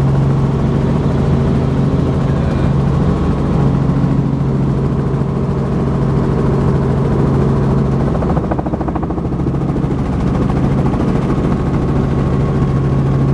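Helicopter engine and rotor noise heard from inside the cabin in flight: a steady drone with a strong low hum. The low hum eases for a few seconds past the middle, then comes back.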